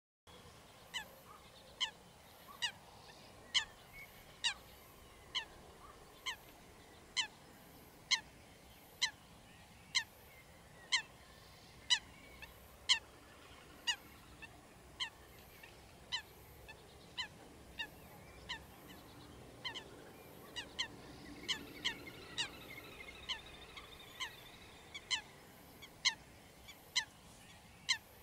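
Eurasian coot calling: a short, sharp call repeated about once a second, over a faint steady background.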